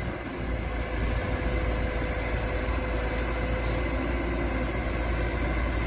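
Kobelco SK200 excavator's diesel engine running steadily, a low rumble with a thin steady whine over it.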